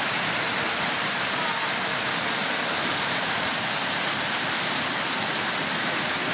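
Flooded Pemali River rushing steadily at high water, with a steady high hiss over it.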